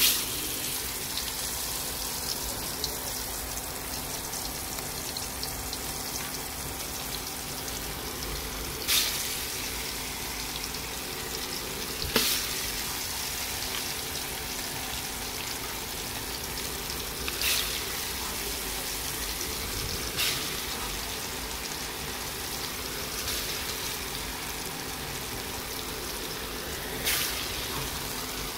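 Masala-coated rupchanda (pomfret) pieces frying in hot oil in a kadai. The sizzle starts suddenly as the fish goes in, then runs on steadily, with a louder spit of oil every few seconds.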